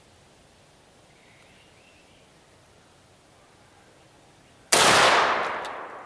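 A single shotgun shot firing a buckshot load, about three-quarters of the way through, starting sharply and dying away over about a second and a half.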